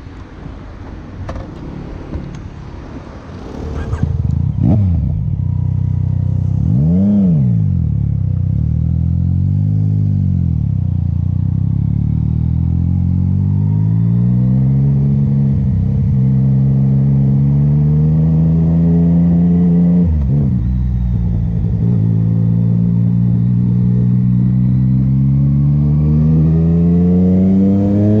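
Yamaha MT-09 motorcycle's three-cylinder engine: a few quick throttle blips, then pulling away and accelerating through the gears. The pitch climbs steadily, drops at a gear change about twenty seconds in, and climbs again.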